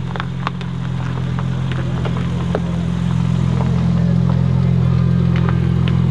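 BMW M4 CSL's twin-turbo straight-six, breathing through a loud custom exhaust, running at a steady low idle with an even pitch and growing gradually louder.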